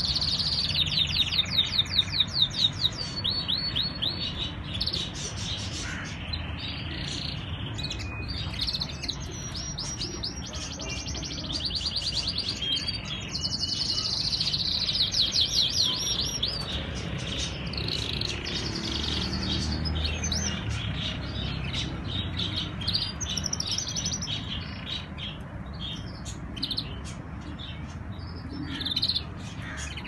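Caged domestic canaries singing: long runs of rapid rolling trills and chirps, loudest in the first few seconds and again around the middle, over a steady low rumble.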